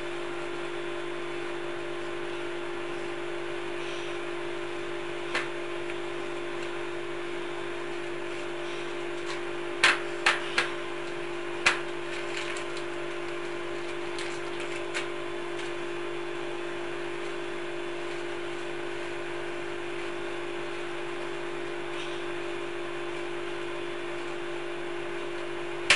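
A steady hum with an even tone runs throughout, with a few short, sharp knocks: one about five seconds in and a quick cluster of four around ten to twelve seconds in, from hands working a lump of silicone sealant and starch on a wooden board.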